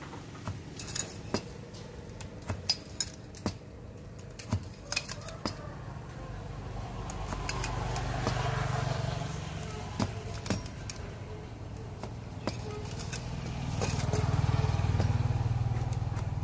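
Light metallic clinks and clatter, many in quick succession over the first half, with a low rumble that swells twice, once about halfway through and again near the end.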